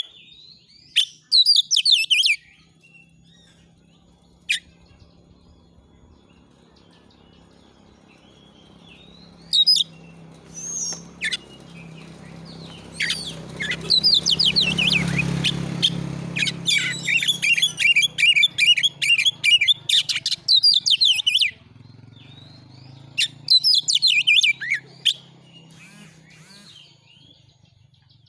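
Oriental magpie-robin singing in repeated bursts of fast, sharp chattering notes with short pauses between, the longest unbroken run about two-thirds of the way in. This is the forceful, aggressive song that keepers call 'nembak' (firing off its song material).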